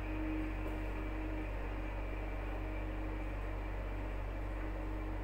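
A steady low hum with a hiss over it, level throughout, and a faint steady tone that drops in and out.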